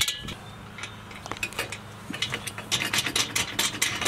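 Light metal clicks and clinks of nuts, bolts and caster-wheel brackets knocking against a patio heater's steel base pan as the wheels are fitted by hand. The clicks are sparse at first and come thicker in the second half.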